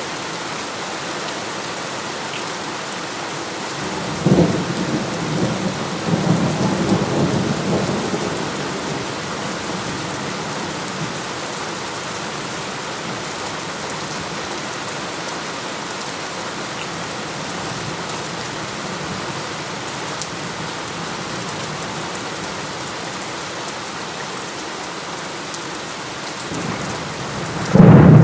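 Steady heavy rain, with a thunderclap about four seconds in that rumbles on for a few seconds. A sudden, louder clap of thunder breaks near the end.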